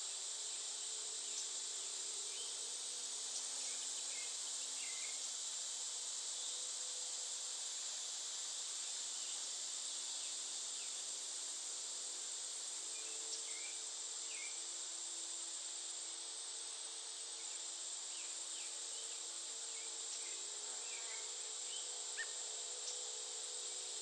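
Steady high-pitched chorus of summer insects such as crickets, with a few short bird chirps scattered through it. A faint low hum lies underneath and shifts in pitch about halfway through and again near the end.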